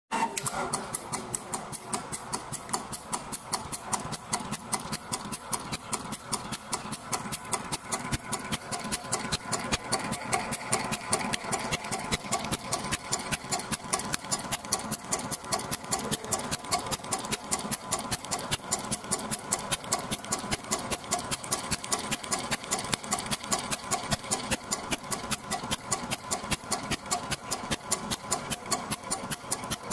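Richpeace automatic pattern sewing machine stitching a zigzag seam: a fast, even clatter of needle strokes that runs steadily.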